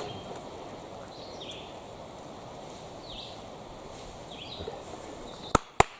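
Outdoor ambience: a bird repeats a short, high, falling chirp about every second and a half over a steady background hiss. Near the end come two sharp clicks close together, the loudest sounds.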